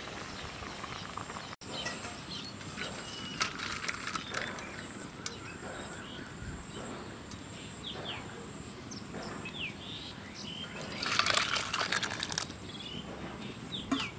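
Outdoor ambience with scattered small clicks and a few short bird chirps. A louder rush of hissing noise comes about eleven seconds in and lasts about a second and a half.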